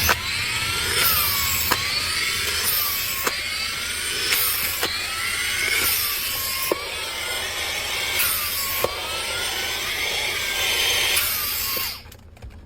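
Cordless vacuum cleaner running, its whine rising and falling over and over in a back-and-forth rhythm, with a sharp click every second and a half or so. It cuts off about twelve seconds in.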